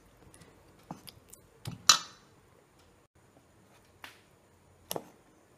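Steel spoon stirring thick chocolate cake batter in a metal bowl, clinking against the bowl about five times, loudest about two seconds in, with faint scraping between.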